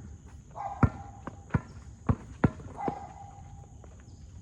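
A basketball bouncing on a hard court, six dribbles at an uneven pace over the first three seconds, then stopping.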